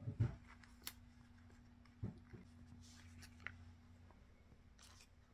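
Hands handling materials for a homemade craft: a couple of soft knocks near the start and about two seconds in, a few sharp clicks, and light rustling over a faint steady hum.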